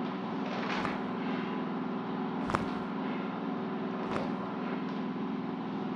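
Joints cracking during a chiropractic adjustment: three sharp pops spaced about one and a half seconds apart, the middle one loudest, over a steady low machine hum.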